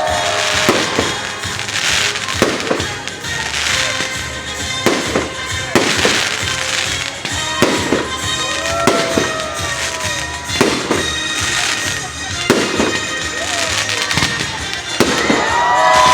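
Fireworks display: aerial shells bursting with sharp bangs every one to three seconds, amid crackle and rising-and-falling tones.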